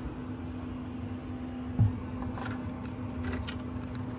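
Steady hum of a CNC enclosure's cooling fans and exhaust fan running, with a single steady tone in it. A dull thump comes about two seconds in, followed by a few light clicks.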